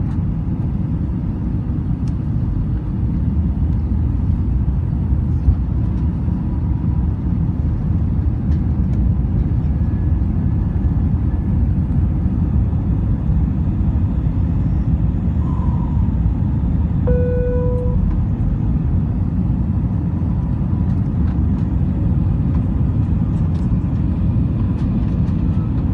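Steady low rumble of an airliner's jet engines and rushing air heard inside the passenger cabin, growing a little louder about three seconds in. A short pitched tone sounds about two-thirds of the way through.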